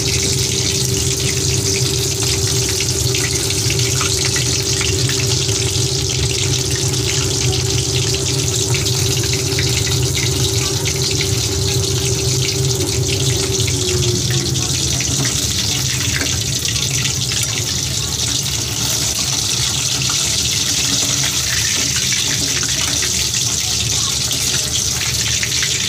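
Chicken pakoras deep-frying in hot oil in a wok: a steady sizzle of bubbling oil as the pieces brown in the last stage of frying, nearly done. A low steady hum underneath drops away about halfway through.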